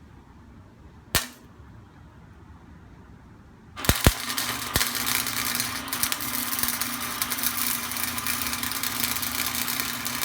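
Electric arc welder laying a weld bead: a sharp click about a second in, then, from about four seconds in, a steady crackling, sizzling arc over a low hum.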